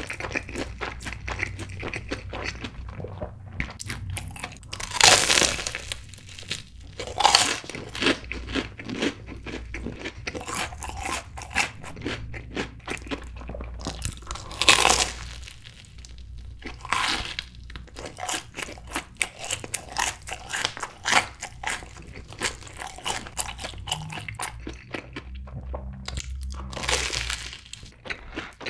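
Close-miked crunching and chewing of a corn dog coated in crushed Cheetos. A few loud crunchy bites, a couple of seconds or more apart, with quieter crackling chews between them.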